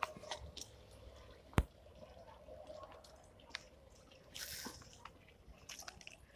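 Fishing reel being wound in on a lure retrieve: faint ticks and small dripping water sounds, with one sharp click about a second and a half in and a brief hiss a little after the middle.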